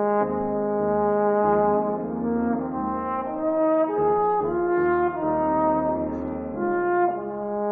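Trombone playing a slow melodic line, one sustained note after another, each held for roughly half a second to a second.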